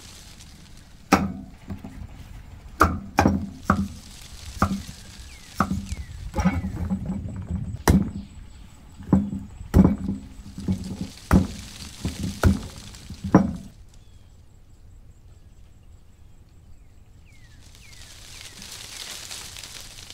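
Cleaver chopping through a whole pumpkin on a thick wooden chopping block: a run of about fifteen sharp thunks that stop after about thirteen seconds. A soft hiss follows near the end.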